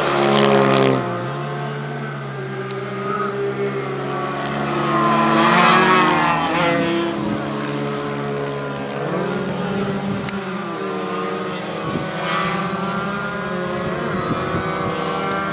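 Several racing motorcycles running on a circuit, their engines revving up and falling back as they pass one after another, with overlapping engine notes. The loudest pass comes about six seconds in, with others near the start and about twelve seconds in.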